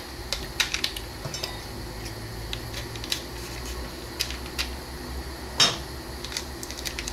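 Kitchen clatter: cutlery and dishes clinking and knocking in a scatter of short hits, with one louder knock about five and a half seconds in, over a low steady hum.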